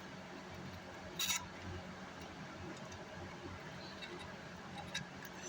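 Quiet workbench room tone with a faint steady low hum, broken by a short sharp tick about a second in and a fainter one near the end.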